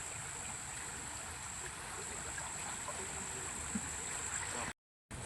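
Steady sound of flowing water, with a constant high-pitched whine above it. The sound cuts out completely for a moment near the end.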